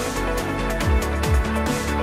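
Electronic background music with a beat of deep kick drums and sharp hi-hat ticks.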